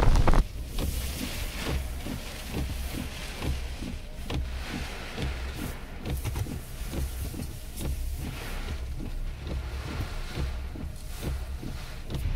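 Storm surf crashing loudly, cut off half a second in. Then the muffled rumble of a car driving through typhoon rain and wind, heard from inside the cabin, with faint soft beats about three a second.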